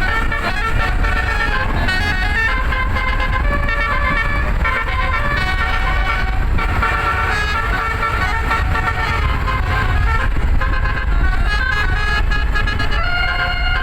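Bus-mounted Basuri telolet horn, a set of roof-mounted trumpets, playing a melody of quick changing notes over the low rumble of the vehicle.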